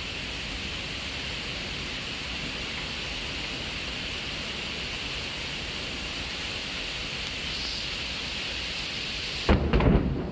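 Heavy thunderstorm rain pouring steadily onto flooded pavement, an even hiss. Near the end, a sudden loud, deep rumble of thunder breaks in over it.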